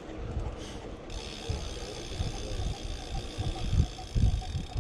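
Wind buffeting the microphone and tyres rolling on pavement as a BMX bike is ridden, with a few louder low gusts near the end.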